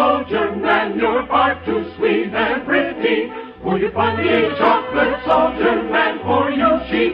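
Operetta music: a choir singing with an orchestra in an old radio recording.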